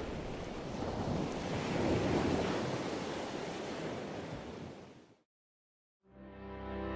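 Ocean waves washing, swelling and then fading out about five seconds in. After a moment of silence, soft music fades in near the end.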